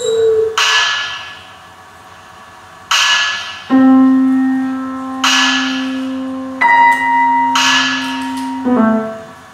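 Experimental music for grand piano and laptop electronics: a sharp hissing hit that fades away, repeating four times about every two and a half seconds, over held low tones that come in and change pitch three times.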